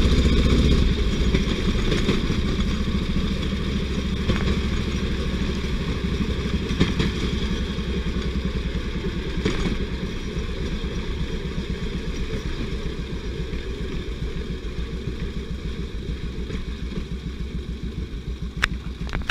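Motor jigger's engine running at low speed as the rail trolley rolls slowly along the track, its fast even beat getting gradually quieter after a drop about a second in. A few light knocks and a sharp click near the end.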